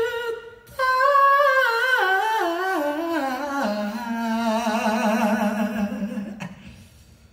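Male singer's voice through a concert PA, unaccompanied: a held note, then a long line that steps down in pitch with vibrato, fading out near the end.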